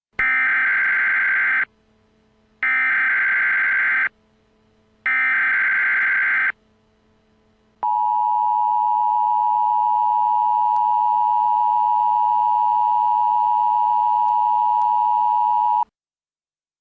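Emergency Alert System tones: three bursts of SAME header data, each about a second and a half long. They are followed by the steady two-tone attention signal, held for about eight seconds, which opens an emergency alert broadcast.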